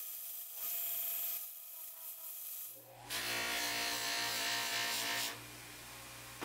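A drill-spun blade hissing against a sanding belt in two short spells. About three seconds in, a bench grinder's buffing wheel starts a rasping hiss over the motor's steady hum as a bar of buffing compound is pressed to it. After about two seconds the rasp stops and the motor runs on with the hum alone.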